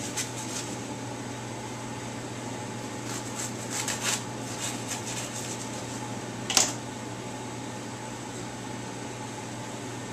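Knife cutting through the crust of a freshly baked loaf on a wooden board, with a few short rasping strokes about three to four seconds in and one sharp knock a little over six seconds in. A steady fan hum runs underneath.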